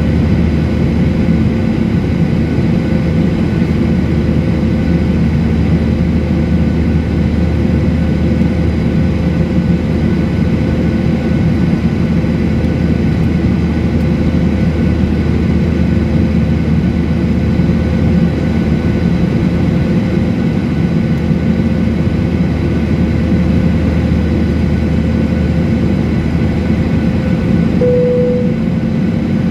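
Steady drone of a jet airliner heard from inside the cabin in flight: engine and airflow noise, even and unbroken. A short single tone, about a second long, sounds near the end.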